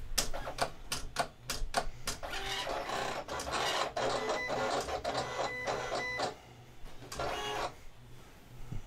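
Silhouette Cameo 4 cutting machine running a test cut through vinyl: a quick series of clicks, then the carriage and roller motors whirring for a few seconds as the blade traces the shapes, and one shorter whir near the end.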